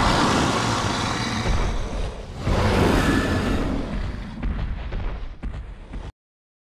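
Loud, deep rumbling dinosaur sound effects for an animated Tyrannosaurus: a booming swell, a second swell about two and a half seconds in, then a few thuds. They cut off suddenly about six seconds in, leaving silence.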